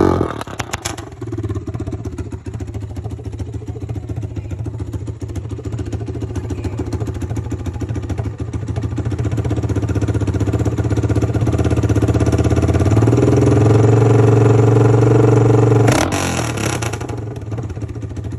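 Honda TRX300EX single-cylinder four-stroke ATV engine with no muffler, idling with an open, chugging exhaust note. About thirteen seconds in it is revved and held high for a few seconds, then crackles briefly and drops back to idle.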